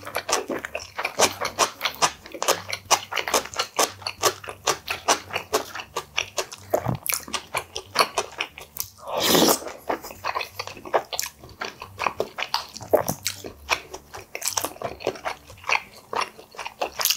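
Close-miked eating sounds of a man chewing a mouthful of food: a dense run of wet mouth clicks and smacks.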